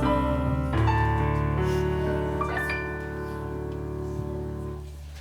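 Piano playing the closing chords of a song after the singing has ended. The last chords are held and ring out, fading away near the end.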